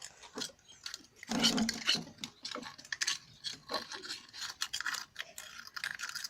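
A slime mixture of glue and liquid soap being stirred and scraped in a container: irregular rubbing, scraping and small clicks.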